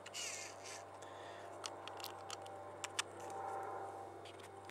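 Scattered sharp plastic clicks and taps from handling an LED camping lantern, its fold-out hand crank being folded away after cranking, over a low steady hum.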